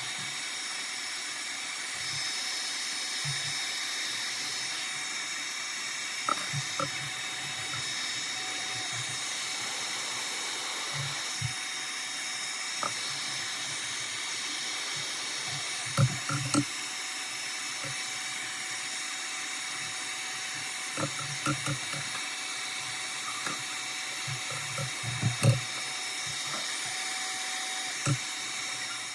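Hot air rework station blowing steadily, a hiss with a thin high whine, softening the back glass adhesive of a phone, with scattered light clicks and taps now and then.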